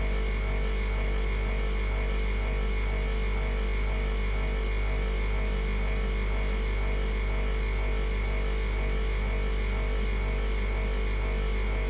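Freezer running with a steady low electrical hum and a few fainter steady higher tones, throbbing faintly about twice a second.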